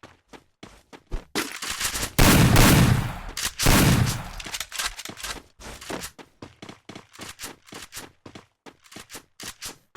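Video-game gunfire: two loud booming blasts about one and a half to four and a half seconds in, each fading slowly, amid a steady run of short sharp clicks at about three to four a second.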